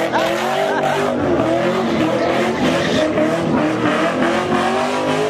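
A car's engine held at high revs while its tires squeal, spinning donuts; the pitch wavers up and down.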